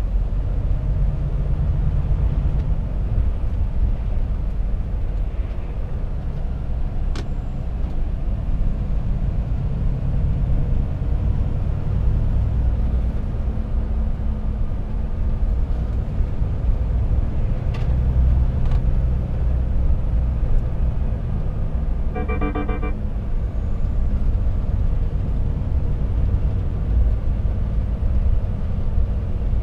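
Volvo FH 460 truck's 13-litre straight-six diesel and road noise making a steady low rumble while driving. About 22 seconds in there is a short, rapidly pulsing electronic beep, and a few faint clicks come earlier.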